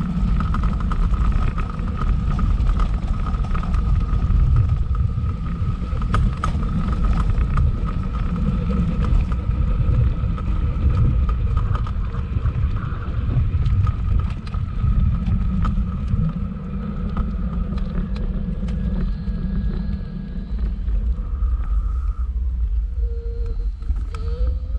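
Vintage electric tram running along its track: a steady low rumble with a thin whine over it. Near the end the whine stops and the sound eases.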